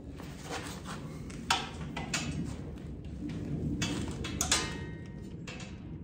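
Hand tools clinking against the bolts and steel frame of a tractor grill guard as a bolt is fitted and tightened: a few sharp metallic clicks and taps, the loudest about a second and a half in and again about four and a half seconds in, over a steady low rumble.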